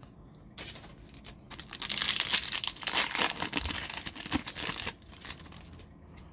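A foil trading-card pack wrapper being torn open and crinkled, a dense crackling that builds about a second and a half in and dies away near five seconds.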